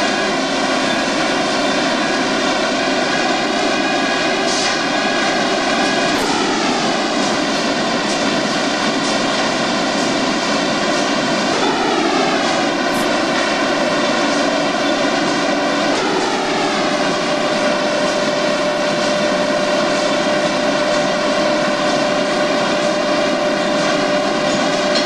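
Industrial machinery running with a loud, steady drone and a whine of several stacked tones. The pitch dips and settles a few times, and a thin steady tone joins about two-thirds of the way through.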